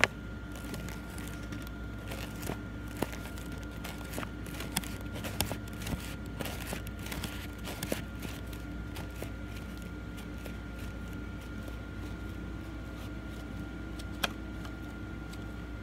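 A folded paper cootie catcher being worked open and shut by hand: paper rustling and crinkling with light clicks, busiest in the first half, and one sharper click near the end. A steady background hum runs underneath.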